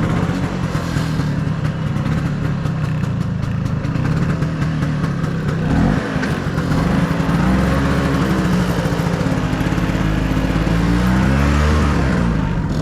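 A 1997 Vespa P200E scooter's two-stroke single-cylinder engine running under way. Its note drops off briefly about halfway through, then climbs and falls again as it accelerates.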